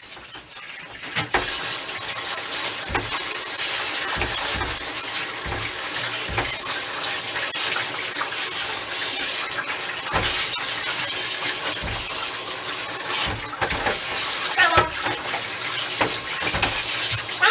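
Handheld shower sprayer running water over a dog's wet coat in a bathtub: a steady hiss of spray that starts about a second in, with scattered low knocks.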